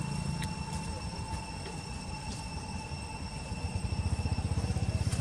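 A low, rapidly pulsing engine rumble that grows louder near the end, with faint steady high-pitched tones above it.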